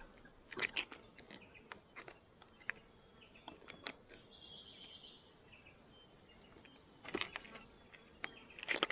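Faint, scattered crinkles and clicks of a foil freeze-dried meal pouch as its resealable zip top is pulled open, with a small cluster of crackles about seven seconds in.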